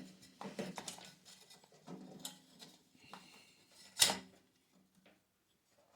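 Light clicks and knocks from hands handling the water heater's burner and thermocouple parts, with one sharp knock about four seconds in.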